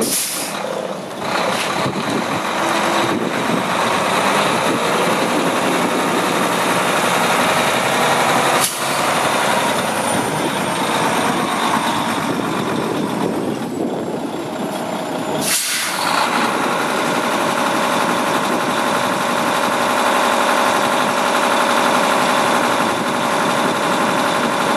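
Diesel engine of a 2014 Volvo VNM day cab tractor running, with two short hisses of the air brakes, one right at the start and one about two-thirds of the way through. After the second hiss the engine idles steadily.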